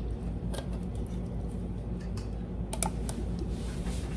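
A few light clicks and taps from a rubber spatula scraping chipotle peppers in adobo sauce out of a can into a plastic food processor bowl, over a low steady hum.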